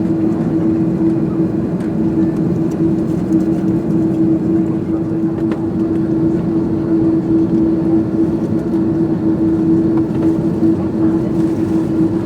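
Steady cabin noise of an Airbus A330-200 taxiing after landing: engines at idle under a constant hum, with no changes.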